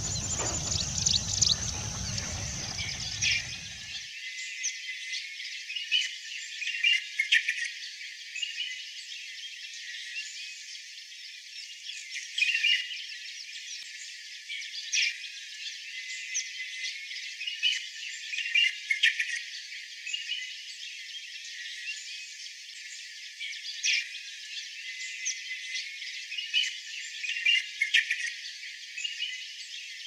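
White-browed bulbul song: repeated short bursts of high-pitched chirping, spluttering warble notes every second or two. A low rumble underneath cuts off suddenly about four seconds in, leaving only the high-pitched notes.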